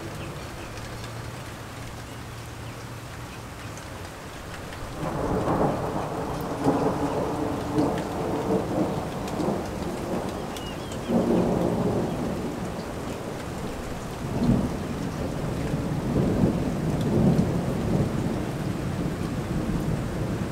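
Steady rain falling, with thunder rumbling in long rolls that begin a few seconds in and swell again several times.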